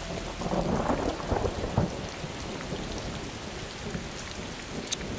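Cartoon sound effect of steady rain falling, with a low rumble of thunder in the first couple of seconds and a short sharp tick near the end.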